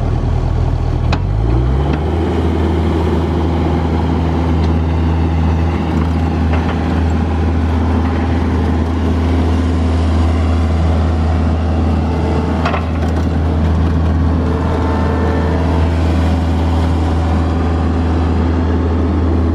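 John Deere 50G compact excavator's diesel engine running steadily, rising from idle to a higher working speed about a second and a half in, with a few sharp knocks as the arm and bucket dig.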